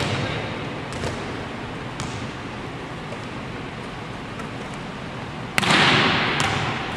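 A volleyball smacked hard once, about five and a half seconds in, the sharp slap ringing out in the echo of a large empty gym. A couple of faint taps come earlier.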